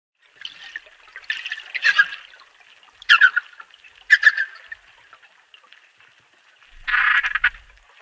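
Amazon river dolphins calling: five short bursts of high-pitched calls with pauses between them.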